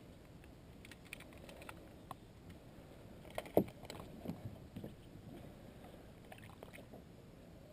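Light knocks and clicks of gear being handled in a small fishing boat, the loudest a single knock about three and a half seconds in, with a few smaller ones just after.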